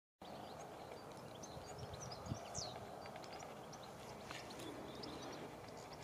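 Songbirds chirping and calling in short high notes over a steady background hush, with a single dull thump about two seconds in.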